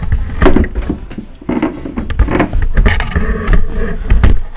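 A large cardboard box being handled and shifted about: a run of irregular knocks, bumps and scrapes.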